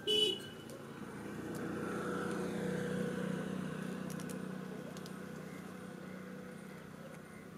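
A motor vehicle passing by, its sound swelling to a peak about three seconds in and then slowly fading, after a short loud sound at the very start.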